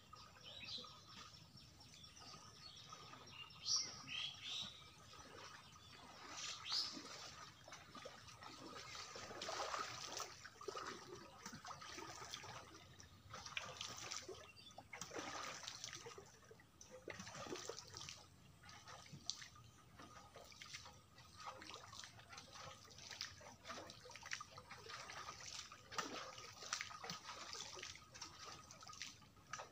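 Water sloshing and splashing irregularly as a person wades through a shallow pond, with a few short bird chirps in the first seconds.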